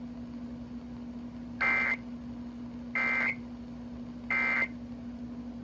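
Emergency Alert System end-of-message data bursts: three short, buzzy digital squawks about a second and a half apart, the coded signal that closes the severe thunderstorm warning broadcast. A steady low hum runs underneath.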